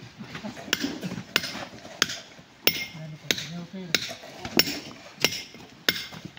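Hammer striking rock in a steady rhythm, about nine sharp blows evenly spaced, roughly one every two-thirds of a second, as rocks are cut by hand.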